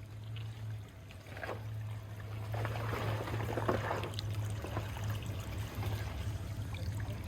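Off-road vehicle engine running with a steady low hum while crawling over a rocky trail, with a louder rush of noise about two and a half to four seconds in.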